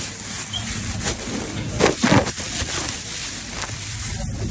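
Phone microphone handling noise: rubbing and a few soft bumps as a hand passes over the phone, over a steady background hiss.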